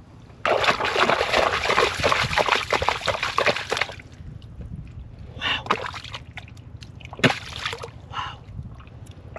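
Hands splashing and sloshing in shallow muddy water while groping in a mud hole for fish: about three seconds of dense splashing, then a few separate splashes and a sharp slap near the end.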